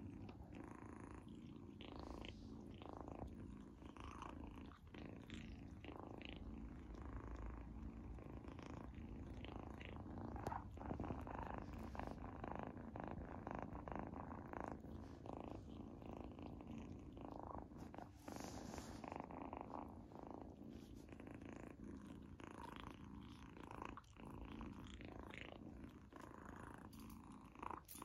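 A kitten purring steadily, with frequent small wet clicks from licking and chewing a treat.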